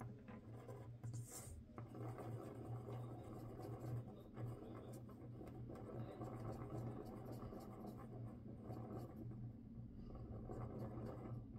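Glue pen rubbing across paper: faint, scratchy strokes over a low steady hum.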